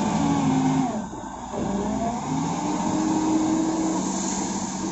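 Caterpillar wheel loader's diesel engine running under load. Its pitch dips about a second in, then rises again as it works a bucket of wet sand.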